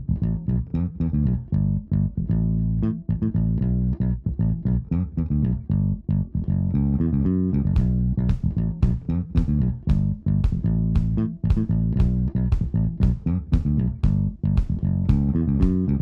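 Background music with a prominent bass line and a steady beat, growing busier about halfway through.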